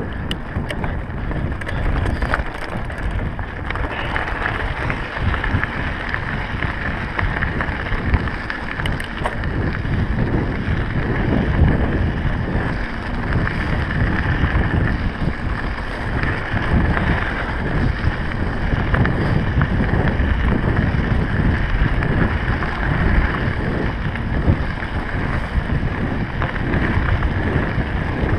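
Wind buffeting the microphone of a camera on a moving mountain bike, over the rumble and rattle of knobby tyres rolling on a gravel dirt trail.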